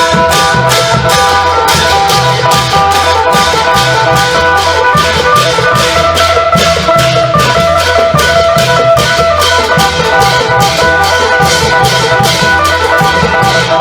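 Isan klong yao long-drum band playing with a phin (Isan plucked lute) carrying the melody: deep drums and cymbal strokes keep a steady fast beat under the plucked tune.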